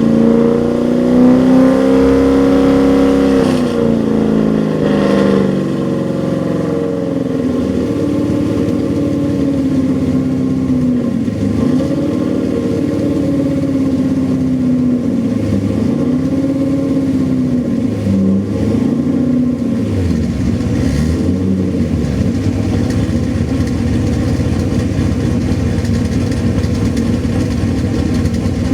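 Corvette V8 running through its exhaust: held at raised revs for the first few seconds, then a series of quick throttle blips, each rising and falling in pitch, before settling to a steady idle near the end. The engine runs on new spark plugs, wires and coils, with new gaskets on its leaking cat-back exhaust.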